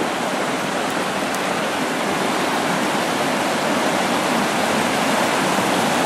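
Fast-flowing, mud-laden creek rushing steadily, growing slightly louder toward the end.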